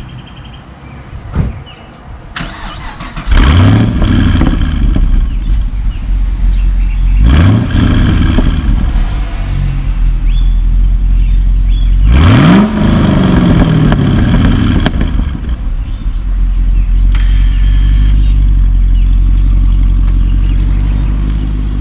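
Holden Commodore SSV Redline ute's V8 starting up and being blipped three times, the revs rising sharply and dropping back each time, then settling into a steady idle.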